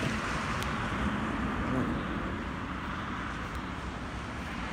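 Road traffic: cars driving past with a steady hiss of tyres on wet pavement and a low engine rumble underneath.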